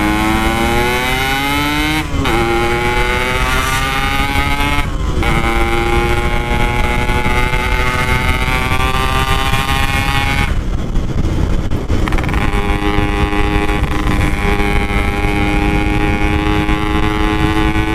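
Yamaha RX-King single-cylinder two-stroke motorcycle engine pulling hard through the gears: the note climbs, drops sharply at upshifts about 2 and 5 seconds in, then holds steady at high revs. It goes off throttle for about two seconds near the middle and then runs steady again, with wind rumble underneath.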